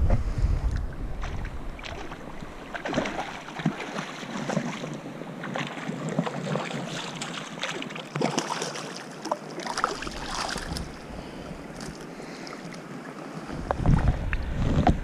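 Shallow river water lapping and splashing right against the microphone of a camera held at the surface, with irregular small splashes and knocks. A low rumble of handling comes in near the start and again near the end.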